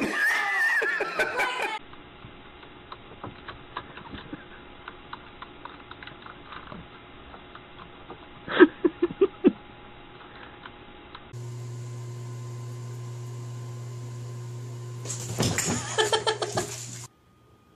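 Scattered clicking of computer keyboard keys, with a quick run of louder knocks about halfway. Then a steady low hum, and a short burst of a voice laughing near the end.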